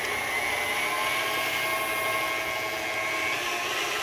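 Electric tilt-head stand mixer running steadily at speed with a motor whine, its beater mixing an egg and vanilla into creamed sugar and oil.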